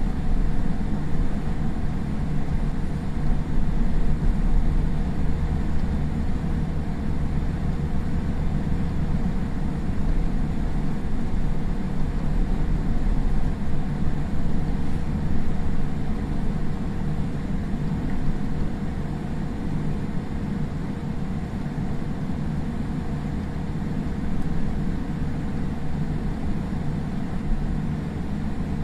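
Steady low cabin rumble inside a Boeing 787-8 airliner on the ground after landing, with a faint steady hum above it; the level eases slightly about two-thirds of the way through.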